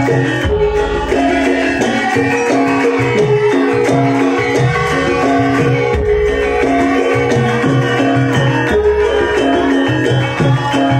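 Live Javanese gamelan music with hand drums, playing a steady rhythm under ringing metallic notes to accompany the dance.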